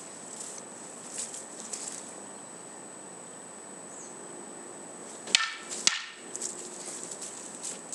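Two sharp wooden clacks about half a second apart, about five seconds in: wooden practice swords (bokken) striking each other in sparring.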